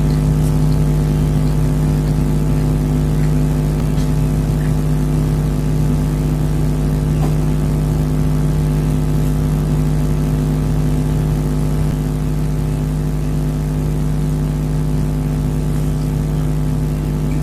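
Steady low machine hum made of several fixed tones, holding unchanged throughout, with a few faint clicks.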